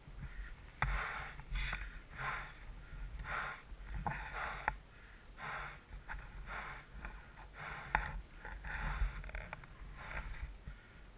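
A person breathing hard close to a helmet-mounted camera microphone, about one heavy breath a second, with wind rumbling on the microphone.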